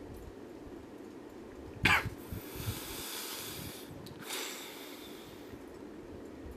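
A person's sharp cough-like burst of breath about two seconds in, followed by two long breathy exhalations, over a low steady room hum.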